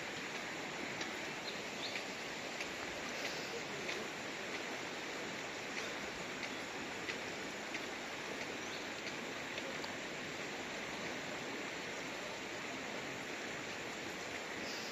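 Shallow river running over rocks: a steady wash of moving water, with faint short ticks now and then.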